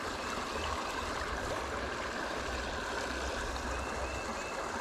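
Small stream running steadily over a rocky riffle, a continuous rush of water with a low rumble beneath it. A few faint, short high chirps come near the end.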